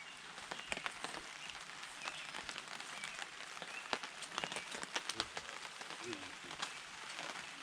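Rain falling steadily, with many scattered single drops ticking sharply close by.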